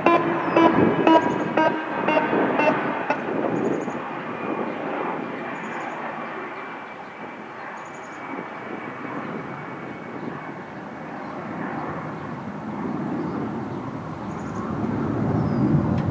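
ASC Alertronic AL-8000 electronic siren sounding a pulsing tone, about two pulses a second, a choppy pulse that the recordist hears as the siren faltering. It dies away about three seconds in, leaving a steady rushing outdoor noise that fades and swells again, with a few short high chirps.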